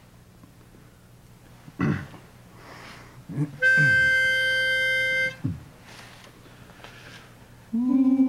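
Pitch pipe blown for about a second and a half, giving one steady reed note: the starting pitch for the barbershop quartet's next song. A few short vocal sounds come before and after it, and near the end the quartet comes in on a held sung chord.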